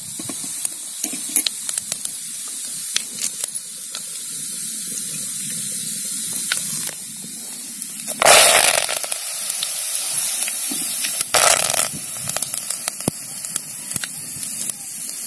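Mustard and cumin seeds frying in hot oil in a clay pot: a steady sizzle with scattered sharp crackles. About eight seconds in, a handful of chopped green leaves drops into the oil and sets off a loud burst of hissing. A second, shorter burst follows about three seconds later.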